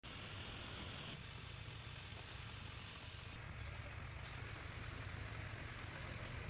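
A motor running steadily, a low hum with a hiss over it.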